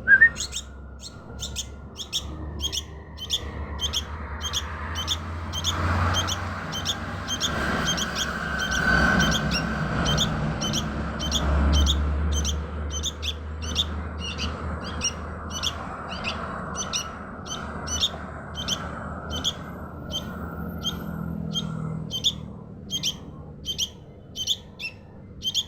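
Young sooty-headed bulbul chirping, short high calls repeated evenly at about two a second.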